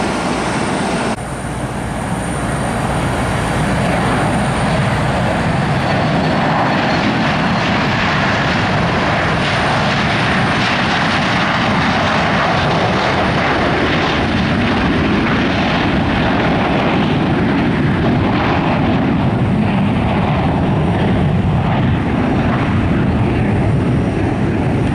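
Boeing 727 freighter's three Pratt & Whitney JT8D turbofan jet engines at takeoff power, a loud, steady rush of jet noise. It dips briefly about a second in, then builds back up and holds.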